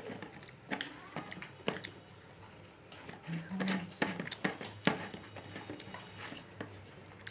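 Close-up mouth sounds of chewing and eating: irregular wet clicks and smacks, with a short low hum a little past the middle.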